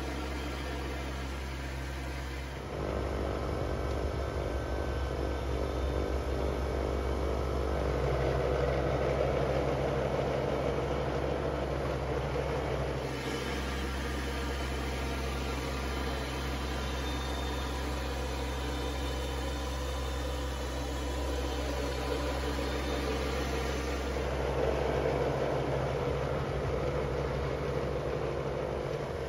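Kubota BX2822A compact tractor's diesel engine running steadily with its front snowblower working. The sound gets louder about three seconds in and shifts in level a few more times.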